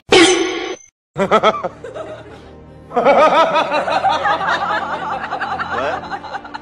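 Laughter, several voices giggling together, grows fuller about three seconds in, after a sudden sound effect at the very start and a short break about a second in.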